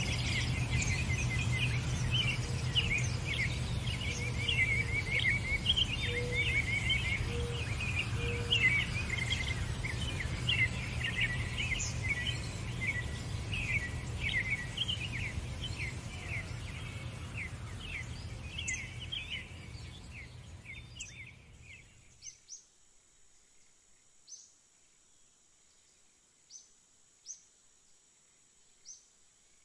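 A flock of small birds chirping and twittering busily over a steady low background rumble. The whole sound fades away about two-thirds of the way through, leaving only a few faint, short, high chirps.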